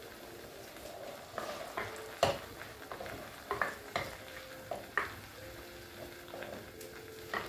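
Chopped onion frying in oil in an earthenware pot, a faint sizzle, while a wooden spoon stirs it, knocking and scraping against the clay now and then.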